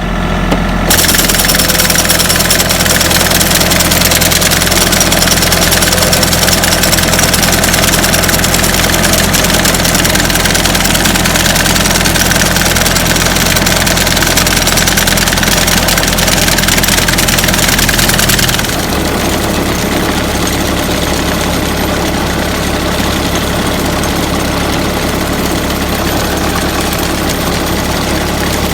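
Compact diesel tractor, a John Deere 3025E, running at steady speed and driving a Ford 501 sickle bar mower on test after a new Pitman arm was fitted, with the mower working properly; a steady high hiss sits over the engine note. About two-thirds of the way through, the engine note drops and the whole sound gets quieter.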